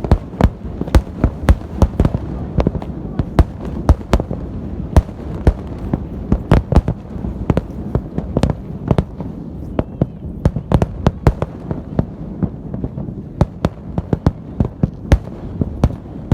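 Fireworks salute: shells bursting in a rapid, irregular series of sharp bangs, several a second, their echoes merging into a continuous low rumble.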